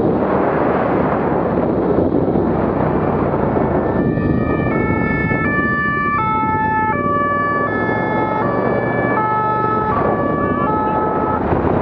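Emergency-vehicle two-tone siren, starting about four seconds in and stepping between notes roughly every half second, over a steady noisy rush of wind and vehicle noise.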